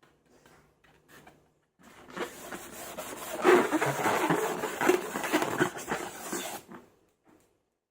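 Slime being squeezed and worked by hand, a dense run of sticky crackles and pops for about five seconds, starting about two seconds in and stopping suddenly near the end, with only faint clicks before it.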